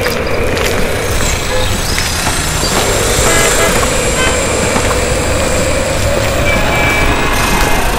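Steady vehicle and traffic noise with a low rumble, and a few brief high tones like horn toots scattered through it.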